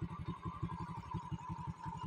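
Small motorcycle engine running at low revs with an even, rapid beat.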